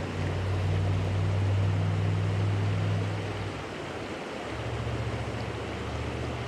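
Rushing creek water, a steady hiss with a low rumble that shifts and eases a little about halfway through.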